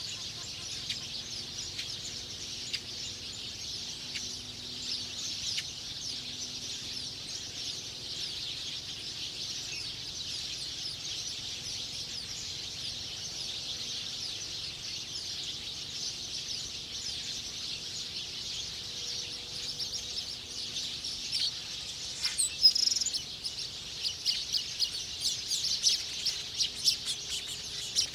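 Wild birds chirping over a steady high-pitched chorus, with one louder call about two-thirds of the way through and quicker, busier chirping near the end.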